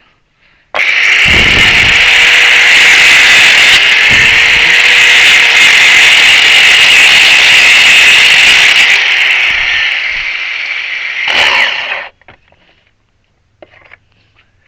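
Power grinder with a cutoff wheel grinding. It starts sharply about a second in, runs loud and steady, surges briefly near the end, and cuts off suddenly about twelve seconds in.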